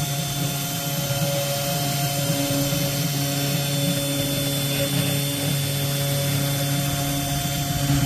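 Small CNC router engraver running on its own as it carves a coaster: its spindle motor gives a steady hum with a higher whine on top.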